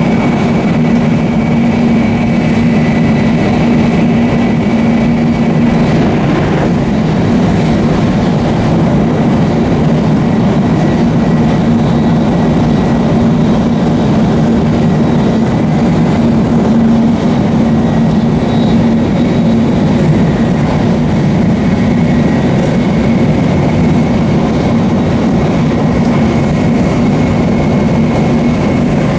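Shinkansen bullet train running at speed: a steady rail rumble with a constant low hum.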